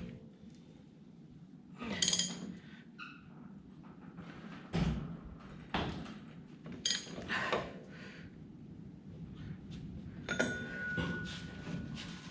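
Irregular metal clinks and knocks of tools on the truck's axle nut and hub parts, about seven separate strikes. Near the end one clink rings on briefly with a clear metallic tone.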